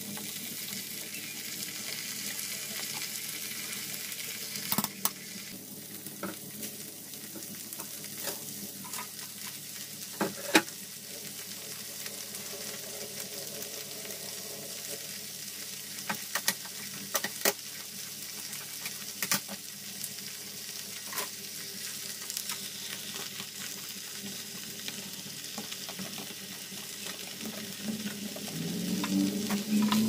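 Ground meat and onions sizzling in a nonstick wok, with scattered clicks and knocks of a plastic spatula stirring and of sliced hotdogs and mushrooms being dropped in.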